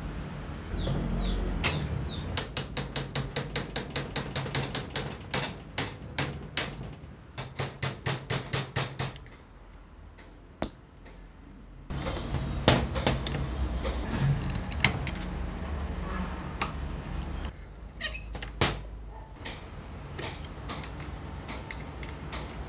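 Small metal clicks and scrapes of hands and a screwdriver working the brush holder caps on an old electric groove cutter's motor. The clicks come in quick even runs of about three to four a second in the first half, then more scattered clicking and scraping later.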